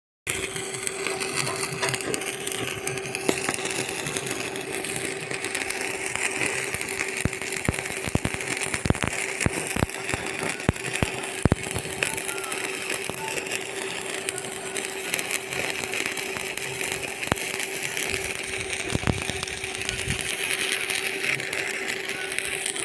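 Electric arc welding on steel pipe framework: a steady hiss and hum with irregular crackling pops, heaviest a third of the way through.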